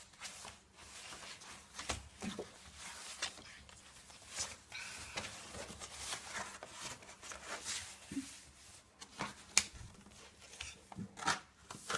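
A picture book being handled and slid across a hard floor: quiet, irregular paper rustles, scrapes and soft taps, with one sharper tap late on.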